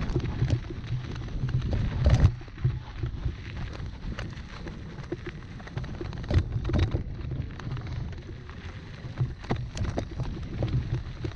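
Mountain bike rolling fast downhill over a rough, rutted rock-and-dirt trail: tyres crackling over grit, with the bike rattling and knocking over bumps, hardest about two seconds in and again near six and ten seconds. Wind rumbles on the microphone.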